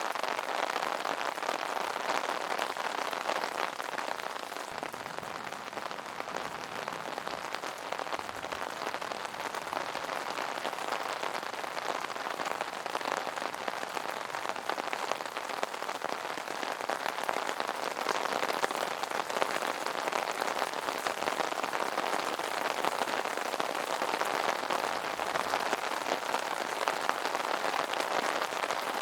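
Rain falling on an umbrella: a steady, dense spatter of many small drop ticks over an even hiss.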